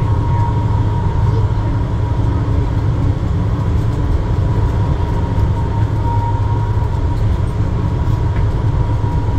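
Metro train running through a tunnel, heard from inside the car: a steady low rumble with a constant whine above it.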